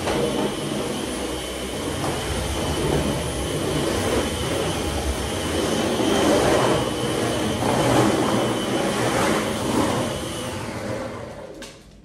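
Dyson cordless stick vacuum cleaner running with a steady high motor whine as its head is pushed over a wooden floor. It is switched off near the end and spins down.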